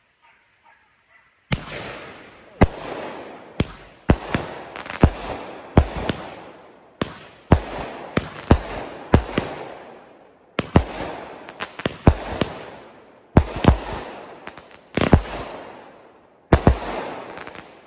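Aerial fireworks going off in a rapid, irregular string of about two dozen sharp bangs, each trailing off before the next, starting about a second and a half in.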